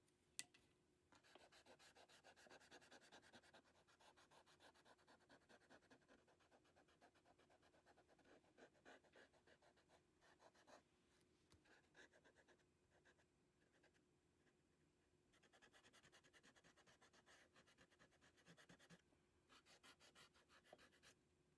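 Faint rubber eraser rubbed quickly back and forth on drawing paper, erasing pencil guide lines, in stretches broken by short pauses. There is a single sharp click about half a second in.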